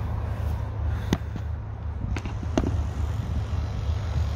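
A steady low rumble with three sharp knocks, about one second in, about two seconds in and again just after.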